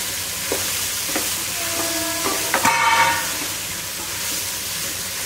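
Mixed vegetables and masala sizzling in an aluminium pot while a steel spoon stirs them, scraping against the pot's sides and bottom. There are a few separate scrapes and a louder ringing clatter of spoon on metal about halfway through.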